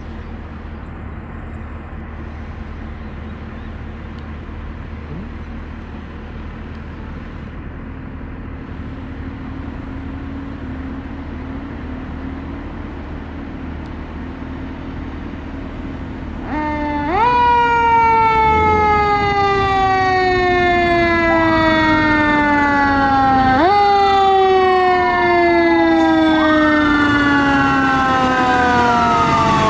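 Steady street traffic noise with a low engine hum, then a fire engine's siren starts suddenly about halfway through and is loud from then on. Each cycle jumps up in pitch and glides slowly down, about every seven seconds. From about three-quarters of the way in, a second rising-and-falling siren tone sounds over it.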